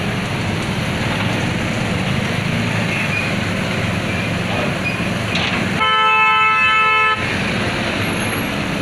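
JCB backhoe loader's diesel engine running steadily while it digs. About six seconds in a vehicle horn honks once, held for about a second and a half.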